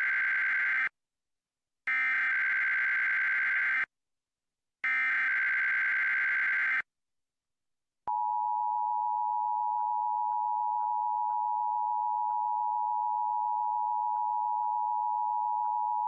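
Emergency Alert System tones for a Required Monthly Test. First come three harsh, buzzy SAME header data bursts of about two seconds each, one second apart; the first is already under way at the start. About eight seconds in, the steady two-tone attention signal (853 and 960 Hz) begins and holds at an even level.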